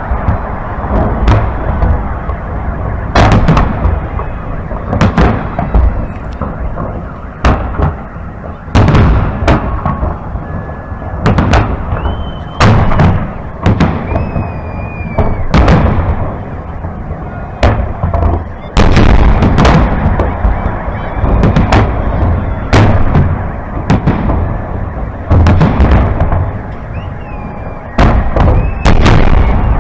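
Salute fireworks shells bursting close overhead: a loud bang about every second, with a low rolling rumble between them and a few faint whistles.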